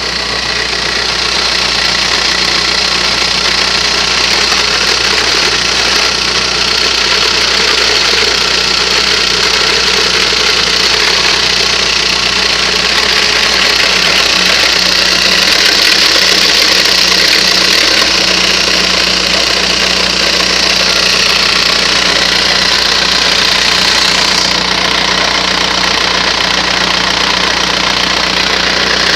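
Škoda Octavia II engine running steadily, with a strange noise that the owner cannot place. The high hiss drops a little about 24 seconds in.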